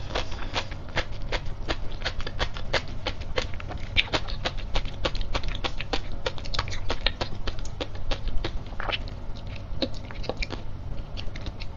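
Close-miked chewing of a mouthful of sea grapes (Caulerpa lentillifera), the little beads popping in a rapid, irregular string of sharp clicks, several a second.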